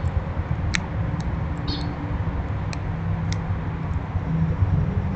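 Outdoor backyard ambience: a steady low rumble, with several brief, high bird chirps scattered through it.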